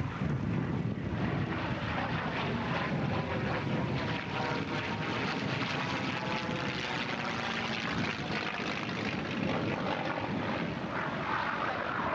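A propeller airplane's engine running steadily.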